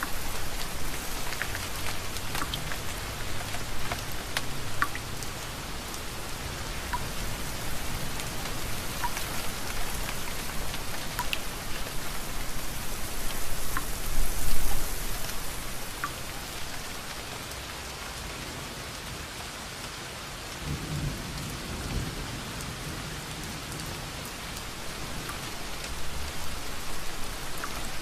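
Steady rain with scattered sharp drop ticks, under low rolling rumbles of thunder; the loudest rumble comes about halfway through and another about three quarters through.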